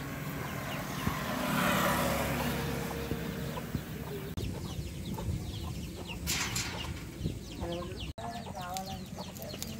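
Wood fire crackling under green bamboo tubes roasting in a clay stove, with short sharp pops and ticks throughout, and hens clucking in the background.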